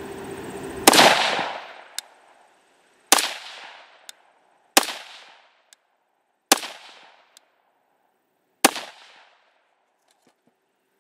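Five rifle shots from an AR-15 with a 1-in-9 twist barrel firing 50-grain Z-Max rounds, about two seconds apart, each with a short echoing tail. A faint sharp tick follows most shots about a second later.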